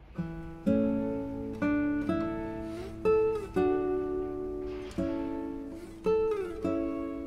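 Background music: a guitar plays a slow melody of plucked notes, each ringing and fading. A few notes slide down in pitch.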